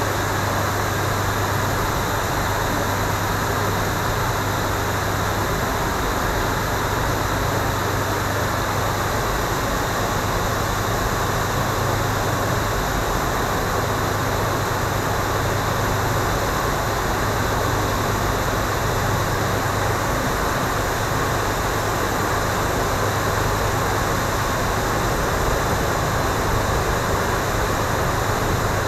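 A passenger boat's engine running steadily: a constant low hum with an even rush of noise over it.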